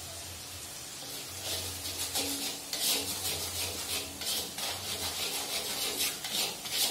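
Long metal spatula scraping and stirring against a steel wok as chili paste is cooked, a quick irregular run of scrapes starting about a second and a half in.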